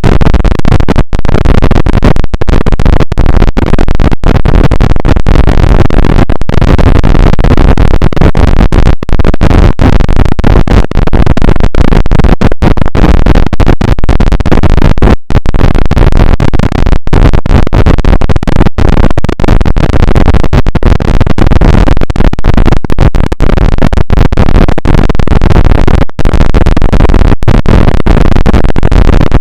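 Very loud, harsh, heavily distorted noise at full volume, continuous except for many split-second dropouts.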